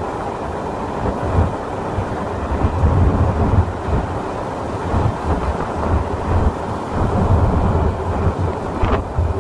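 Strong dust-storm wind buffeting the microphone: a steady rushing noise with deep, uneven gusts. The gusts are louder about three and seven seconds in.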